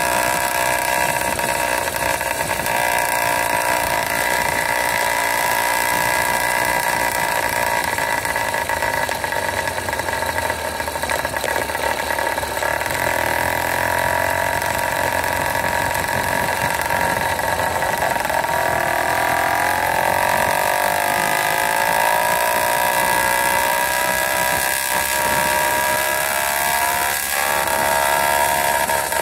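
80cc two-stroke motorized-bicycle engine (Wildcat PK80) running steadily under way. In the second half its pitch rises and falls as the throttle is worked.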